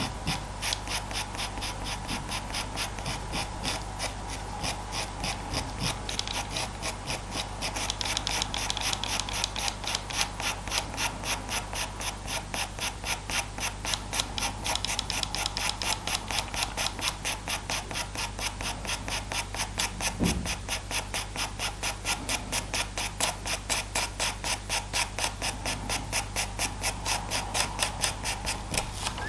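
Faber-Castell Pitt pastel pencil scratching across Pastelmat paper in quick, short strokes, about four a second, laying down the base layer of fur.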